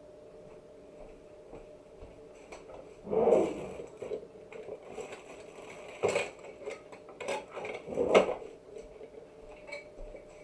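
Kitchenware handled off to the side: scattered clatter and knocks, three louder ones about three, six and eight seconds in, over a faint steady hum.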